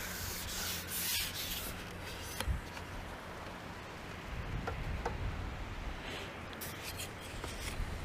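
Faint rubbing and rustling with a few soft clicks over a steady low hum.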